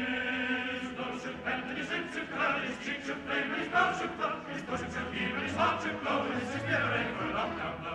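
Background music: a choir singing.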